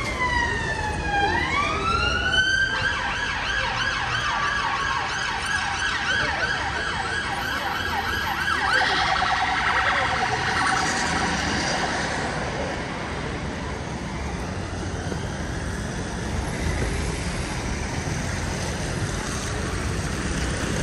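Emergency vehicle siren passing: a falling-then-rising wail, then a fast warbling yelp that quickens about halfway through and fades away after about twelve seconds, leaving steady street traffic noise on the wet road.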